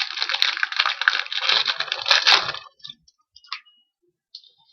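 Crinkling and tearing of a trading-card pack's wrapper as it is opened. It is dense and crackly for about two and a half seconds, then stops, leaving a few light clicks and a brief scrape.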